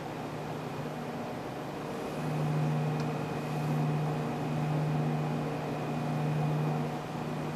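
Steady low mechanical hum with a faint high whine over it. About two seconds in the hum grows louder, swelling and easing in slow waves, then drops back near the end.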